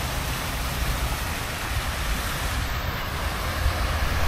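Steady rushing outdoor noise of fountain jets and road traffic, with a low wind rumble on the microphone.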